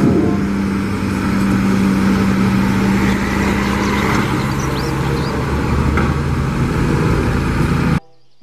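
Heavy diesel dump trucks running while tipping ore into railway wagons: a steady engine hum that fades about halfway through, over a continuous rumbling noise. It cuts off suddenly near the end.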